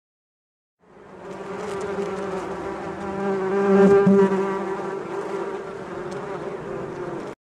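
Bee buzzing: a steady, low hum that fades in about a second in, swells to its loudest around the middle, and cuts off suddenly near the end.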